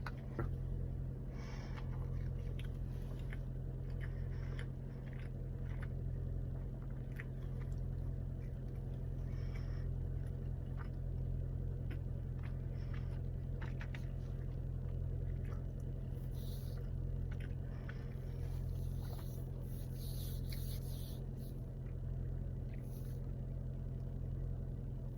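A person eating inside a car. There are scattered small bites, chewing noises, scrapes and rustles over a steady low hum from the car cabin.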